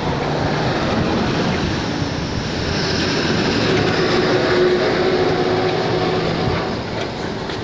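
Steady engine noise of a motor vehicle running nearby, swelling slowly to its loudest about halfway through and easing off again.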